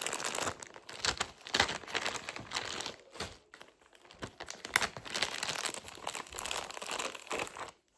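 Plastic packaging crinkling and rustling as small survival-kit items are unwrapped and handled, easing off briefly about halfway through.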